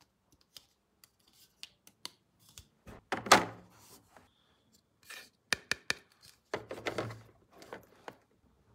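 Scattered clicks and knocks of objects being handled, with two louder, longer thunks, one about three seconds in and one about seven seconds in.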